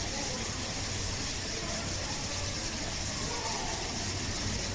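Steady background hiss and low hum with faint, indistinct voices in the distance; no single event stands out.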